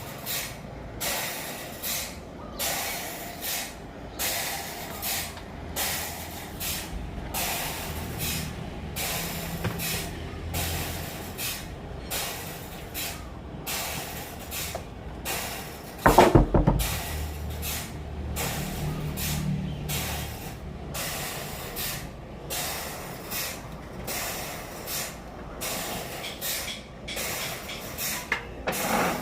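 Sawmill machinery running, with hissing noise that pulses on and off roughly once a second over a low hum. One loud metallic bang with a short ring comes about halfway through.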